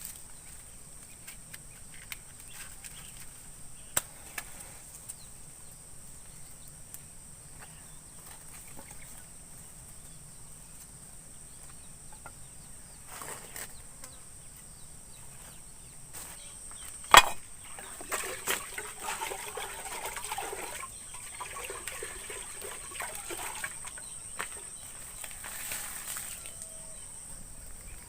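Rural outdoor ambience with a steady high insect drone. Two sharp knocks stand out, one about four seconds in and a louder one around seventeen seconds, followed by an uneven, scratchy stretch of activity lasting several seconds.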